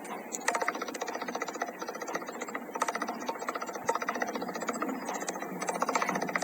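Storm rain or hail drumming on a ringing surface: dense, rapid tapping that starts about half a second in, over a steady hiss.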